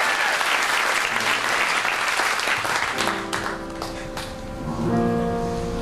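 Audience applauding, dying away about halfway through; then a piano comes in with a held chord, followed by a second chord about two seconds later.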